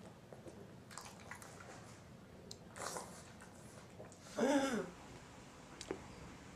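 Dog with kennel cough hacking: a short breathy cough about three seconds in, then a louder cough with a honking tone a second and a half later, amid small clicks and snuffles.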